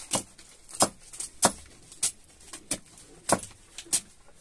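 Kitchen knife chopping chayote squash on a wooden block: seven sharp chops at a steady pace, about one every 0.6 seconds, each blade stroke cutting through into the wood.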